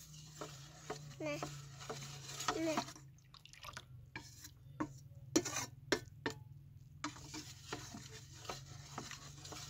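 Metal spoon stirring a watery milk-and-rice-flour mix in a steel bowl, with sharp clinks and scrapes against the bowl in the middle stretch.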